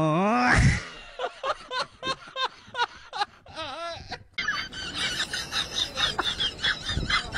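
A man's voice holds a note and slides upward, then breaks into several seconds of bursts of laughter.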